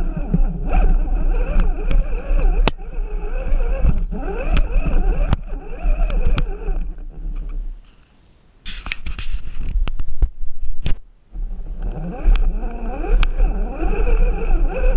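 RC rock crawler's electric motor and geared drivetrain, whining up and down in pitch with the throttle, with clicks and knocks from the chassis and tyres on the course. About halfway through the whine fades and a stretch of scraping and clattering follows, then it cuts out briefly and the motor whine picks up again.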